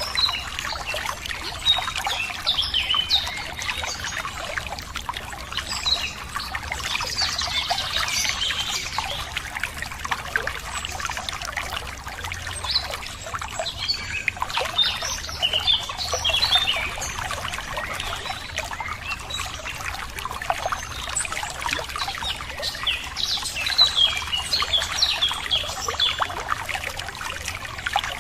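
Running water trickling and splashing steadily, with songbirds chirping and singing over it on and off.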